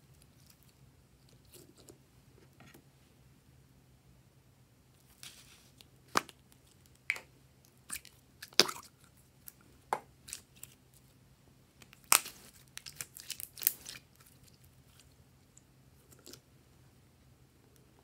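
Glossy slime being squeezed, stretched and pressed by hand, giving scattered sticky pops and clicks in short clusters with quiet gaps between.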